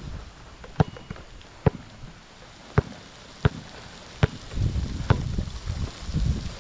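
Basketball being dribbled, six sharp bounces a little under a second apart, with low rumbling wind noise on the microphone over the last two seconds.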